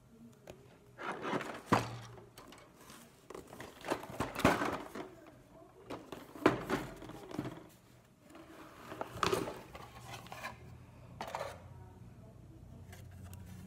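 A cardboard model-kit box being moved, set down and opened by hand on a table: several bursts of rustling and scraping, each with a sharp knock or thud.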